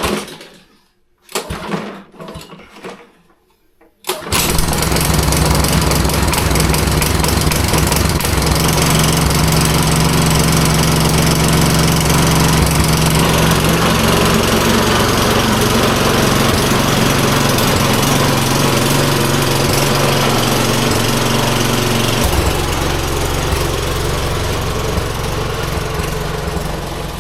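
Small four-stroke walk-behind lawnmower engine catching about four seconds in after a few short bursts, then running loudly at a steady speed and easing off slightly near the end. It is not running normally or spinning up smoothly, which the owner puts down to an oversized, wrong spark plug.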